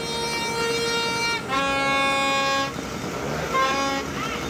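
Horns sounding one after another in long, steady blasts, as the city sounds its horns for New Year: a held blast, then a lower one about a second and a half in, then a shorter one near the end.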